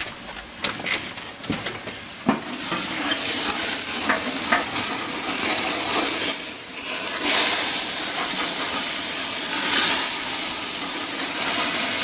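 A few knocks and clicks, then burgers sizzling loudly on a propane gas grill from about two seconds in, over a grease flare-up of too much flame.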